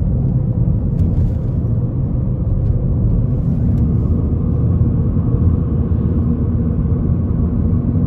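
Steady low road rumble of a car driving on asphalt, heard from inside the cabin: tyre and engine noise with a faint even hum.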